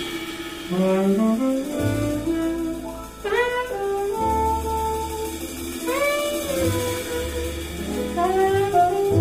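A jazz quartet playing a slow ballad: an alto saxophone carries the melody over upright bass, piano and drums. The saxophone climbs in steps about a second in, then holds long notes that scoop up into pitch at about three and six seconds in.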